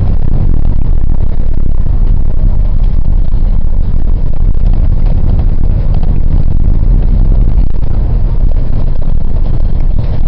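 A moving road vehicle: a loud, steady low rumble of engine and road noise as it drives along.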